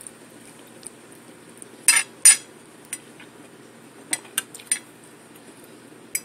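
Metal fork clinking and tapping against a ceramic dinner plate: two sharp clinks about two seconds in, a few lighter taps around four to five seconds, and one more near the end.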